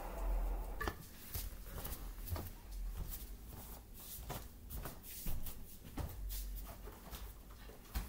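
A low steady noise that stops with a sharp click about a second in, then scattered knocks, taps and light footsteps as the camera is handled and set down on a wood floor.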